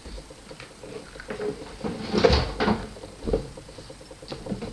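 A few knocks and clatters of objects being picked up and set down, the loudest a little over two seconds in.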